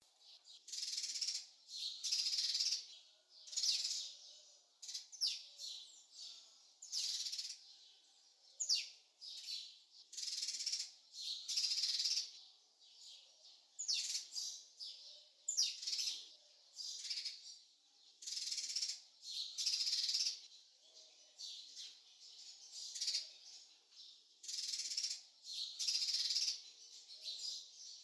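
Birds chirping: short, high calls repeated about once a second, a few of them with quick sliding whistles.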